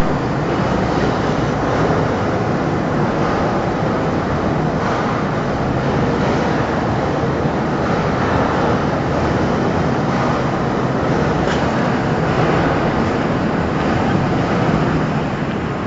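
Single-girder electric overhead travelling crane running: a steady rumble of its wheels and drive, with a low hum underneath.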